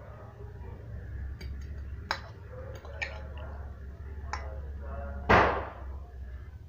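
Close-up mouth sounds of eating fried noodles: small clicks and smacks, then one loud, sharp breathy burst a little past five seconds in.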